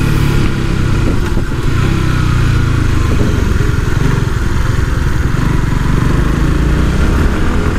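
Sport motorcycle's engine running steadily under way, mixed with heavy wind rumble on the microphone.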